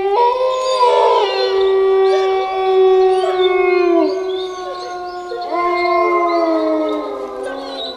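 Several wolves howling together in a chorus: long, overlapping howls held at different pitches, some sliding down at their ends. A fresh howl rises in about five and a half seconds in.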